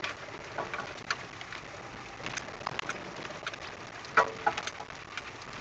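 Inside the cab of a Nissan Pathfinder rolling slowly over a snow-covered track: scattered light clicks and knocks over a faint steady hiss, with one louder knock and a short creak about four seconds in.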